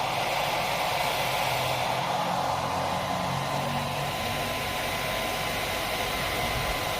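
KADONIO 800W hair dryer running: a steady rush of blown air with a thin, constant fan whine.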